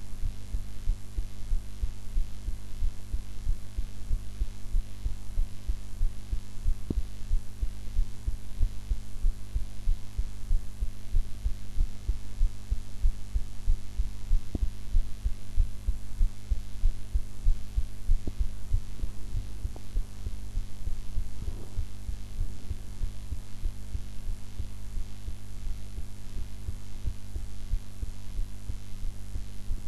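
A woman's heartbeat recorded close up and unedited: low repeated beats with a steady low hum underneath.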